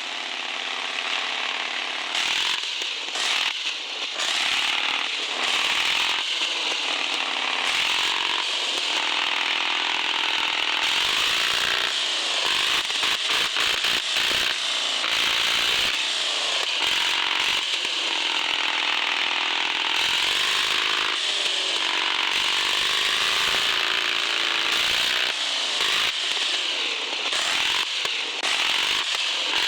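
Electric motor and gearbox of an RC 4x4 crawler whining under load, the pitch rising and falling as the throttle is worked, with a steady hiss and brief cut-outs and stutters partway through.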